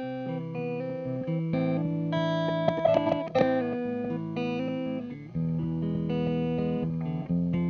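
Electric guitar played through a Red Panda Particle granular delay pedal: its chopped, pitch-shifted repeats make a run of short notes that change pitch in steps. A cluster of sharp picked attacks about three seconds in is the loudest point.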